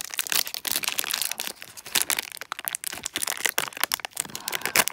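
Plastic blind-bag packaging crinkling and crackling in the hands as it is handled, a quick irregular run of small crackles.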